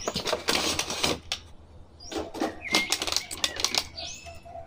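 Clear plastic blister packaging and cardboard box crackling and clicking in quick, irregular bursts as an action figure is pulled out of it.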